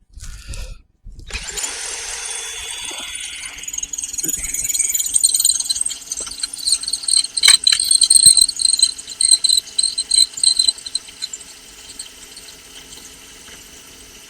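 Power drill boring through stainless steel, starting about a second in. The bit cuts with a high whine that is loudest midway, then the drill stops near the end.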